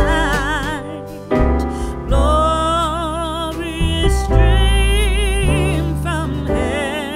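A Lao pop song: a singer holds notes with a wide, wavering vibrato over a backing track with deep bass notes that change every second or so.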